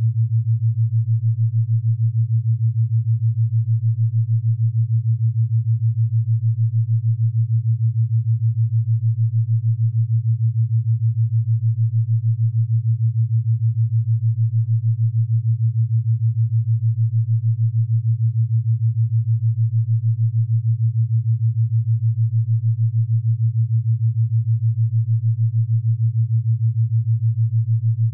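A steady, low electronic test tone: one pure pitch with no other sound, pulsing quickly and evenly in loudness.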